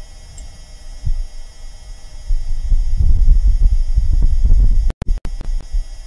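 Martian wind recorded by NASA's Perseverance rover microphone: a low, gusty rumble buffeting the mic over a faint steady electronic hum. It swells about two seconds in and cuts out twice briefly near the end.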